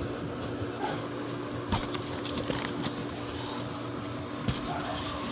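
1.5 horsepower pool pump electric motor running with a steady hum. A few brief clicks of handling come through over it.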